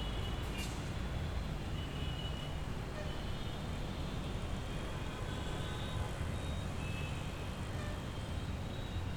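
Street traffic ambience: a steady low rumble of passing vehicles, with a brief sharp click about half a second in.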